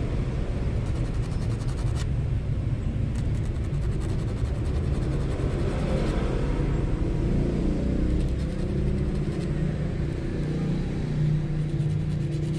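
Steady low rumble under faint scratching of a steel fishhook point being rubbed on sandpaper by hand to sharpen it.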